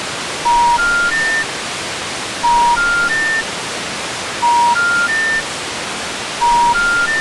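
Steady static hiss with a three-note electronic beep stepping up in pitch, repeating about every two seconds, four times: a broadcast 'please stand by' signal during technical difficulties.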